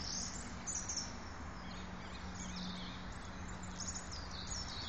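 Birds chirping and singing over quiet outdoor ambience, with a steady low hum underneath.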